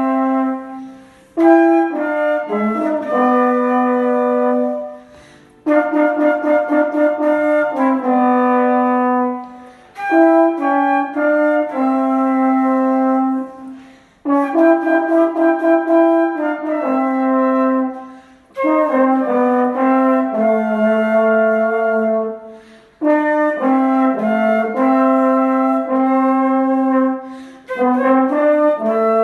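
French horn and flute playing a duet in phrases of about four seconds, each broken off by a short pause for breath.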